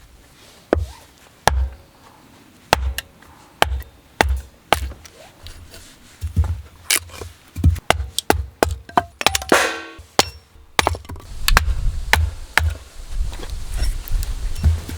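Firewood being split: an irregular string of sharp knocks and cracks, each with a low thud, and a longer splintering crack about two-thirds of the way through.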